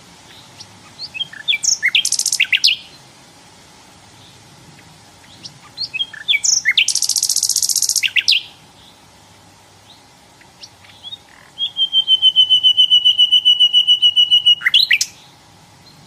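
Common nightingale singing three phrases. Each opens with a few separate short notes and breaks into a fast, loud trill. The last phrase is a long run of one rapidly repeated note, held for about three seconds and ending in a sharp note.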